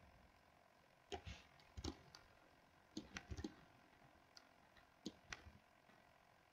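Faint clicks of a computer mouse and keyboard keys, about ten in small clusters, over a quiet hiss.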